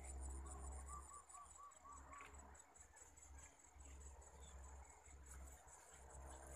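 Faint high-pitched insect trilling, fast and pulsing, of the kind crickets make. About half a second in comes a quick run of six soft notes, over a low rumble.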